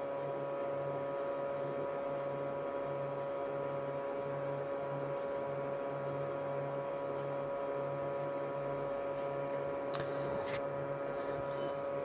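A Campingaz 12 V thermoelectric cooler running on a battery, its heatsink fan motor giving a steady hum with a clear high tone over a low throb that pulses about twice a second.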